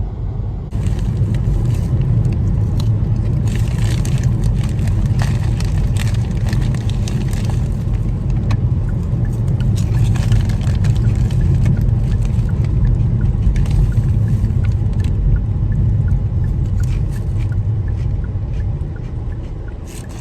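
Car driving, heard from inside: a steady low rumble of road and engine under a rushing wind hiss, with scattered small clicks and rattles. The noise steps up about a second in.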